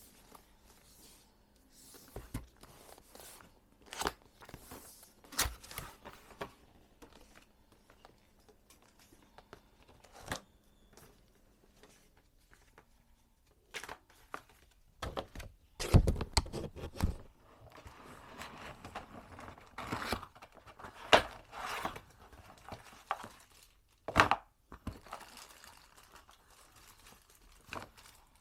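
Typing on a Mchose K99 mechanical keyboard with Kailh switches: irregular keystroke clacks with short pauses, growing into faster runs of typing in the second half, with a few louder strokes.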